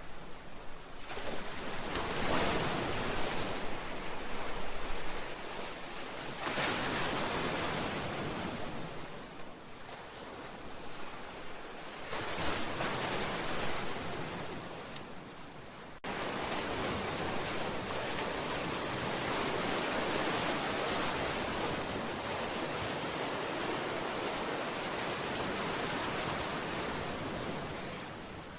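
Sea waves surging against a seawall and breakwater: a rushing surf that swells and falls back every few seconds. About halfway through it changes suddenly to a steadier, unbroken wash.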